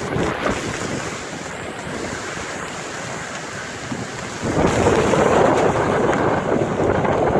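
Hurricane-force wind and driving rain at the height of a hurricane, with wind noise on the microphone. A strong gust comes in about halfway through and the noise gets much louder.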